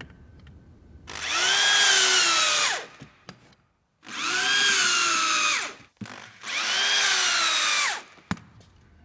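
Corded electric drill driving an insulation-anchor countersinking tool, run three times in bursts of about a second and a half. Each burst whines up to speed and winds down again, sinking plastic plate anchors to depth in mineral wool facade insulation boards.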